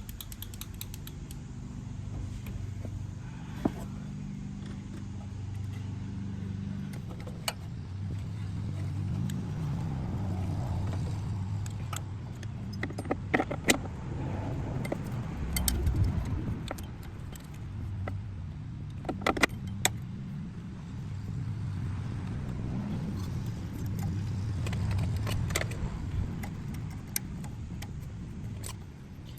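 Small metal carburetor parts and hand tools clicking and clinking irregularly during reassembly, over a steady low rumble.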